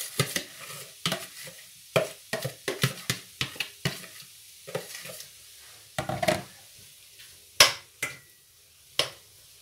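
Spoon scraping and knocking as boiled potatoes are pushed out of a plastic bowl into a stainless-steel pan of frying chicken, with a light sizzle underneath. A sharper knock comes about seven and a half seconds in, and another near the end.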